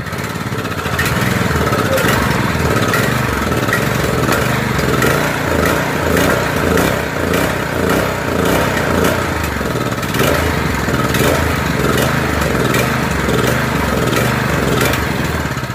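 Predator 212 single-cylinder small engine running rough, its speed surging up and down roughly once a second as if about to die. It has trouble staying running unless the throttle is held at mid or high. The owner suspects a clogged passage under the idle screw in the carburetor.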